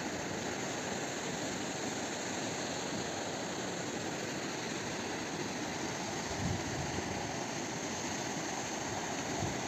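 Steady rushing of a fast, turbulent river.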